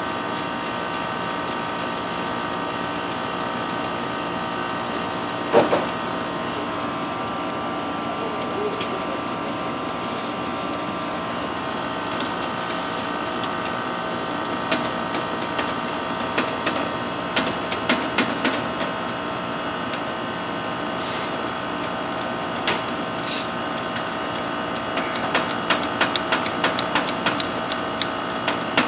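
Outdoor condensing unit of a 3-ton R-410A split system running steadily, compressor and fan humming with several steady tones, while it pumps the refrigerant down into the condenser with the liquid-line valve shut. A sharp knock comes about five and a half seconds in, and bursts of light clicks and taps come in the second half.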